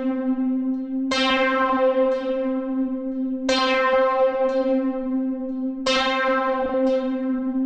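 A software synthesizer in a DAW playing the same mid-pitched note, struck three times about two and a half seconds apart. Each strike starts bright and buzzy, then mellows while the note holds on unbroken between strikes.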